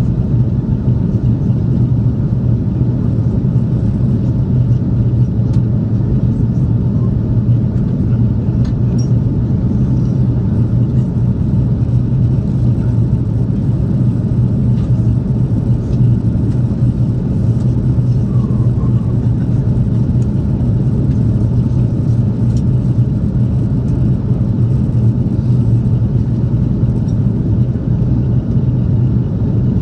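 Steady low drone of an airliner in flight heard inside the passenger cabin: jet engine and airflow noise, constant in level and pitch.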